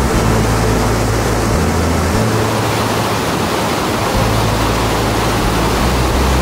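Steady roar of rushing water from the Petrohué River falls and rapids, with low notes underneath that shift every second or two.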